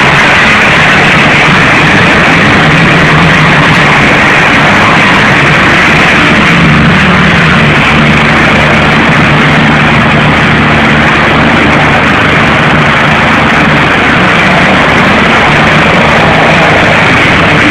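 Helicopter running on the ground with its rotor turning before takeoff: a loud, steady rushing noise over a low hum that rises a little about six seconds in.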